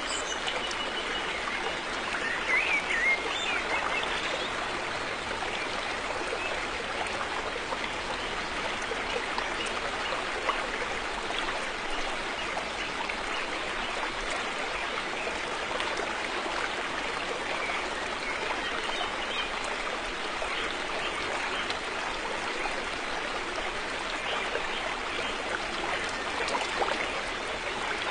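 River water flowing steadily, a continuous even rush of water.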